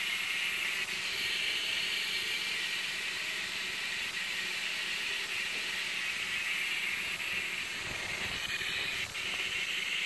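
Small stovetop pressure cooker hissing steadily as steam escapes through its pressure valve: the cooker has come up to the boil and is at pressure.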